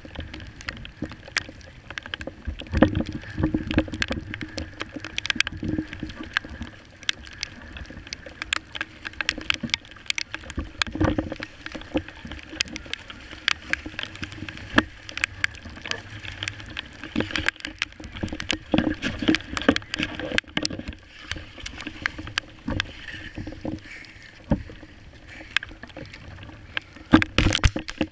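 Rough, choppy sea slapping and splashing against a Hobie Revolution 11 pedal kayak's hull, over a steady rush of water and wind. Many sharp, irregular taps of spray and water hit the camera housing throughout.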